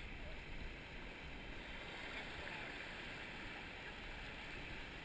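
Steady rush of whitewater river rapids.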